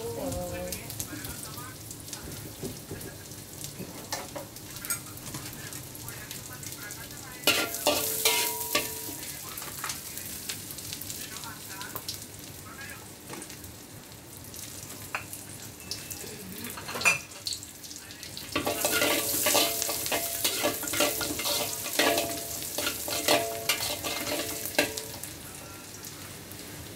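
Food frying and sizzling in oil in a steel wok on a gas stove. Twice the metal spatula stirs and scrapes against the wok, with a ringing clatter: briefly about eight seconds in, and for several seconds from about eighteen seconds in.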